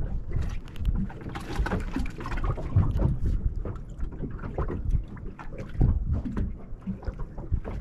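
Water slapping against the hull of a small boat, with wind on the microphone and scattered knocks and clicks.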